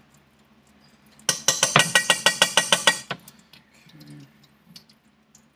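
A kitchen utensil clinking rapidly against cookware: a quick, even run of about eight ringing strikes a second, starting about a second in and lasting just under two seconds.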